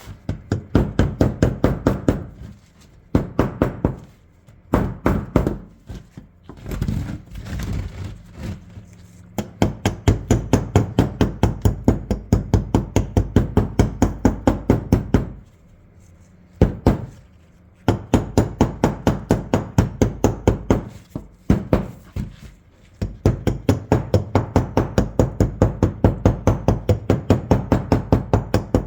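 Rapid, evenly spaced metal tapping, about four strikes a second in runs broken by short pauses: a small hammer striking a tool to chip thick rust scale off an old shotgun.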